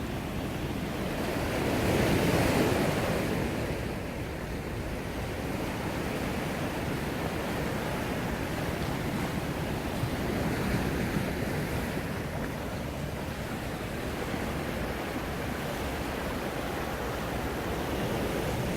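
Sea waves washing in, with a louder wave surging about two seconds in and smaller swells after.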